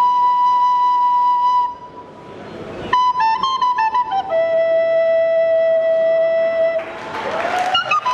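Solo end-blown flute playing a slow melody into a microphone: one long held high note, a short gap about two seconds in, then a few quick notes settling into a long lower held note, with a rising slide near the end.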